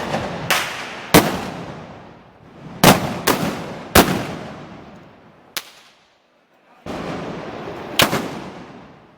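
Volley of blank black-powder arquebus shots, typical of the Moros y Cristianos arcabucería. About eight loud, sharp bangs come at irregular intervals, each with a long echo.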